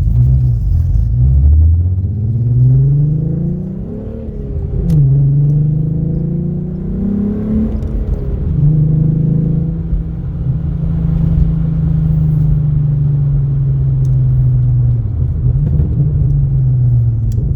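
VR6 engine with 268 cams, breathing through a straight-piped 2.5-inch exhaust (hollowed catalytic converter, muffler replaced by tubing), pulling through the gears. Its pitch climbs, drops suddenly at a shift about five seconds in with a single sharp crack, climbs again, then holds a steady cruise before falling away near the end as the car slows, with another sharp crack just before the end.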